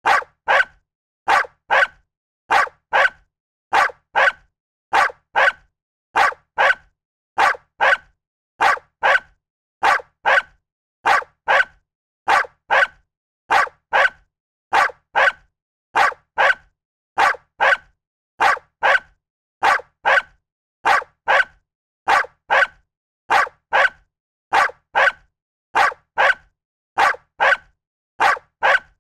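A dog barking in quick pairs, a pair about every second and a half in an even, repeating rhythm, with silence between.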